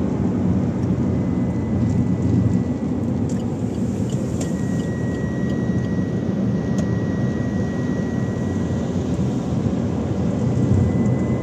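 Steady low rumble of road and engine noise inside a car's cabin at highway speed.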